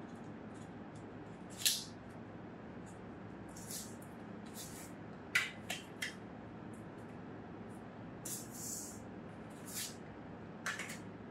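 Short, scattered scrapes, taps and rustles of cardboard and paper being handled as a card accessory box and a paper user guide are lifted out of a cardboard packing box, over a steady low hum.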